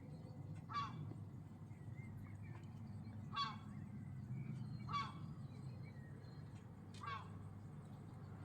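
Gulls calling: four short, harsh calls spaced a couple of seconds apart, over a steady low hum.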